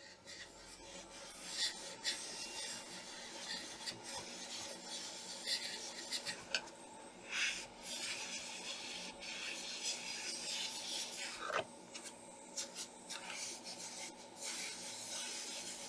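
Irregular scratchy rubbing and scraping on a laptop motherboard during hand work on the board, over a steady faint hum.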